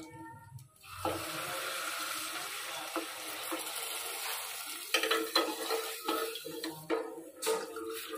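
Milk being poured from a jug into a steel pot of ghee-roasted vermicelli: a steady pouring rush starts about a second in. Over the second half, a steel ladle knocks and clinks against the pot, and the knocks ring.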